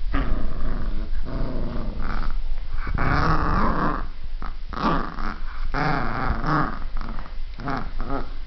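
A Shetland sheepdog puppy, almost three months old, play-growling in a string of short growls, several in a row with brief breaks, while mouthing a chew toy.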